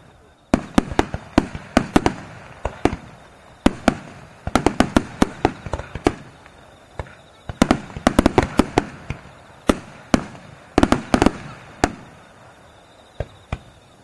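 Aerial firework shells bursting in rapid volleys of sharp bangs, starting about half a second in and bunched into several dense clusters with sparser bangs between.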